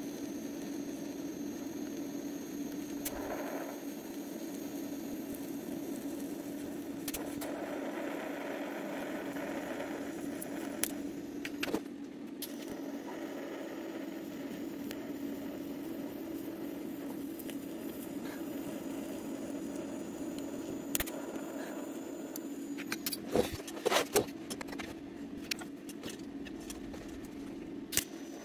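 TIG welding arc running with a steady buzzing hum, joined now and then by a faint crackle. Several sharp clicks and clacks come about 11 to 12 seconds in and again about 23 to 24 seconds in.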